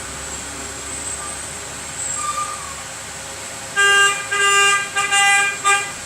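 A vehicle horn honking in about five quick, uneven blasts over the last two seconds, over the steady hiss of a hot-air rework station's blower.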